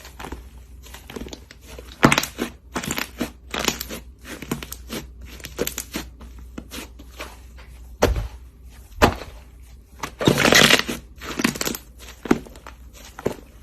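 Slime being squished and pressed by hand, making irregular crackles and pops, with a longer, louder crackling squish about ten seconds in.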